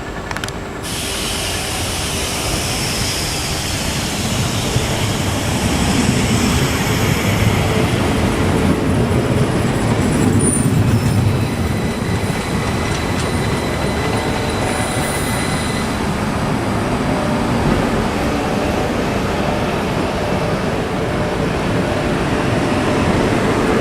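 Class 333 electric multiple unit moving through the station, its wheels running on the rails. The sound grows louder over the first few seconds and then holds steady, with a brief high squeal about ten seconds in.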